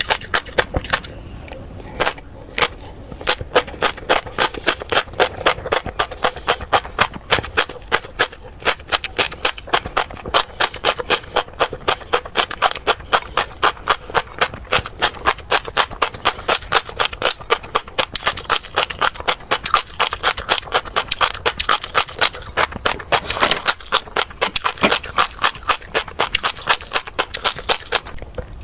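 Close-miked chewing of crunchy tobiko eggs: a steady run of sharp crunches and pops, about three a second.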